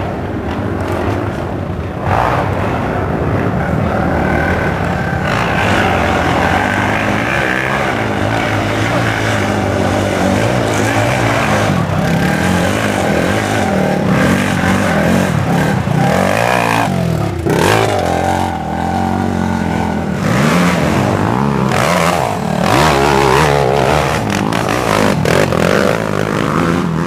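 Racing quad (ATV) engines running hard during a harescramble, revving up and dropping off over and over as the riders throttle on and off.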